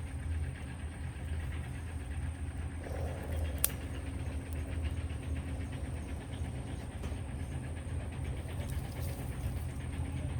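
A wood fire crackling faintly, with one sharp pop a little under four seconds in, over a steady low rumble.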